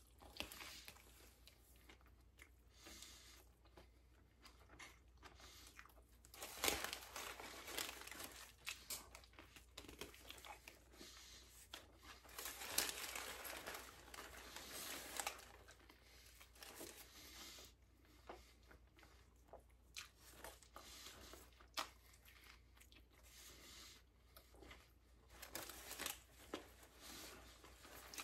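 Quiet eating sounds from a turkey sandwich with vegetables: chewing with irregular rustles and crunches, loudest around 7 and 13 seconds in.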